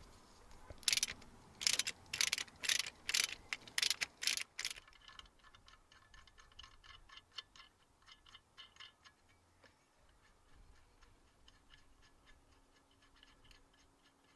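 Socket ratchet turning a 13 mm bolt: a run of loud ratcheting strokes, about two a second, for the first few seconds, then much fainter, quicker clicking as the bolt is run in.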